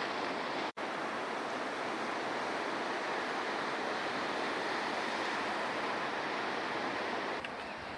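Ocean surf washing against a rocky shoreline: a steady, even rush of waves. It cuts out for an instant about a second in and drops a little in level near the end.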